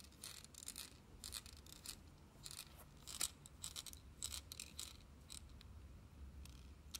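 Small screwdriver turning a tiny screw into the centre hole of a plastic servo horn: faint, irregular scratchy clicks of the driver tip and screw.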